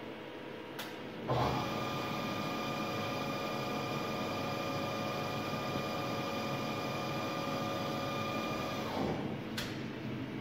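Cincinnati Milacron Dart 500 CNC machining center's spindle starting about a second in, running at one steady speed with an even whine for several seconds, then stopping. A click follows shortly after it stops.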